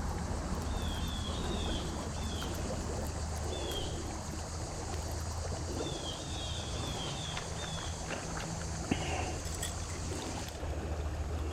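Outdoor riverside ambience: a steady hiss and low hum, with runs of short high chirping calls repeated several times, and a single click about nine seconds in.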